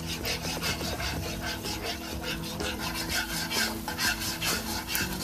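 Metal spatula scraping and stirring scrambling eggs in a hot oiled pan: quick repeated scraping strokes over a light sizzle of frying egg.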